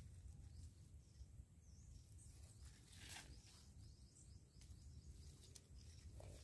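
Near silence: a faint low rumble, with a soft brief rustle of groundcherry leaves about three seconds in as a hand moves through the plants.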